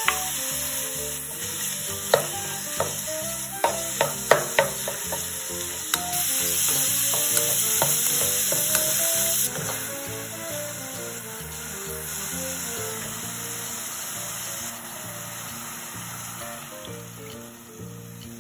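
Beef chunks sizzling as they fry in oil in a stainless steel pot while being stirred, with a few sharp knocks against the pan between about two and five seconds in. The sizzle is loudest from about six to nine seconds in, then eases off. Quiet background music plays underneath.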